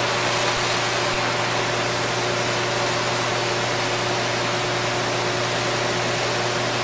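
Steady hiss with a low hum and faint steady tones from running induction heating equipment while the part in the coil heats up.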